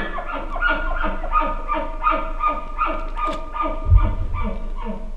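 Bull elk chuckling: a long run of quick, throaty grunts, about three a second. A low thump about four seconds in.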